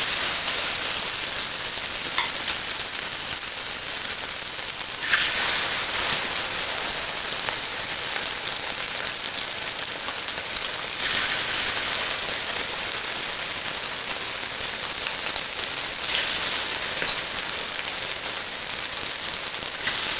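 Coated chicken pieces sizzling in hot oil in an electric wok as they sear on one side: a dense, steady high hiss that swells briefly about five seconds in and again about eleven seconds in.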